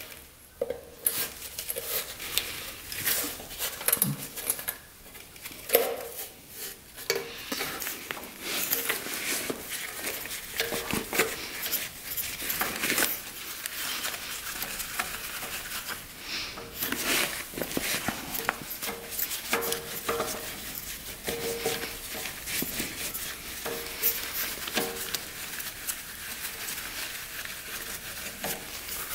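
Metal hand tools clicking, tapping and scraping against a 5 hp Briggs & Stratton engine as its carburetor is unbolted: a busy run of small metallic clicks and scrapes.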